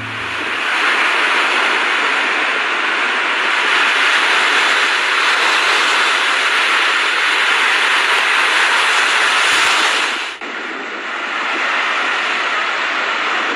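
Steady rushing hiss of heavy rain, with a sudden cut to a slightly quieter stretch of the same noise about ten seconds in.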